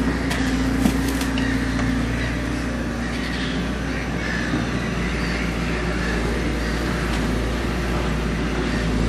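Crawler excavator's diesel engine and hydraulics running steadily, with a few sharp knocks about a second in as its grab lets go of a wrapped waste bale.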